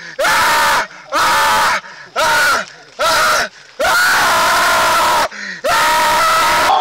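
A man screaming in pain again and again: six harsh screams in a row with short pauses between them, the fifth drawn out longest.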